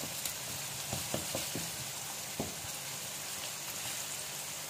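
Spiced masala sizzling steadily in hot oil in a kadai while a wooden spatula stirs it, with a few light knocks of the spatula against the pan in the first couple of seconds.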